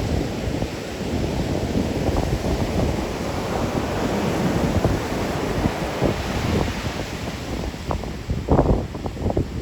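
Rough post-storm surf, waves breaking and washing in a continuous rush that swells through the middle. Wind buffets the microphone in gusts near the end.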